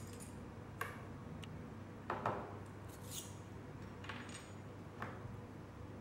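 Stainless-steel parts of a rebuildable tank atomizer being pulled apart and set down on a table: a few light metal clicks and clinks, the loudest about two seconds in, over a faint steady hum.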